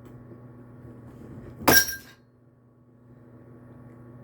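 A fork clattering against a bowl: one sharp clink with a short ringing, a little under two seconds in, over a faint steady hum.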